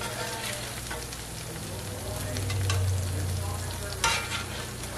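Hot grease sizzling and crackling in a cast-iron skillet after frying potatoes, the burner just switched off. A short sharp knock about four seconds in.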